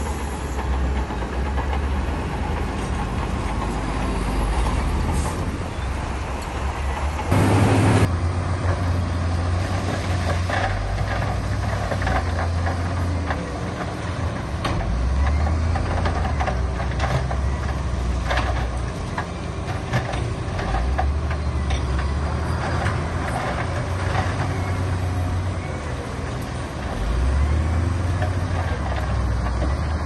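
Diesel engines of heavy earthmoving machinery running and working, the deep engine note rising and falling under load, with frequent clanks and knocks. A short, loud rush of noise breaks through about seven seconds in.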